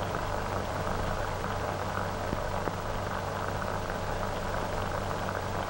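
Steady hiss and crackle of an old optical film soundtrack over a low hum, with two faint clicks a little over two seconds in.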